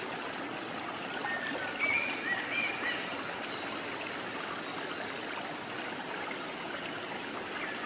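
Steady rush of a stream's flowing water, with a few short high chirps about two seconds in.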